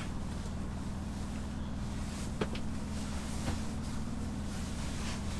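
A Scania truck's diesel engine running steadily, heard from inside the cab. Two faint clicks come about two and a half and three and a half seconds in.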